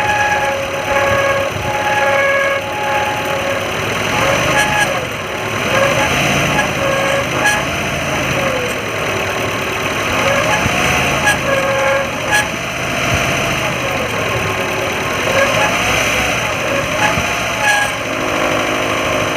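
Maruti Gypsy engine running, with a whine over it that keeps rising and falling in pitch. The owner puts the bearing noise down to a damaged water pump.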